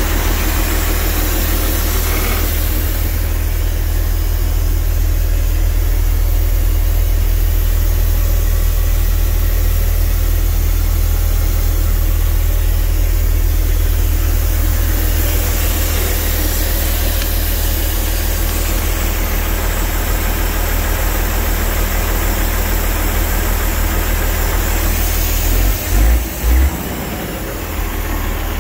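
MAN 26.321 truck's diesel engine idling steadily, a constant low hum, with two short low thuds near the end.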